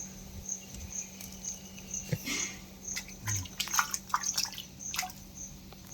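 Water dripping and splashing lightly in a fish tank in scattered small drops and clicks, with a faint high chirp repeating about twice a second and a steady low hum.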